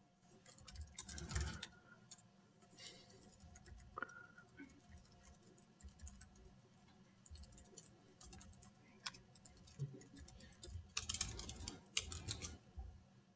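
Typing on a laptop keyboard: several short bursts of key clicks with brief pauses between them, loudest about a second in and again near the end.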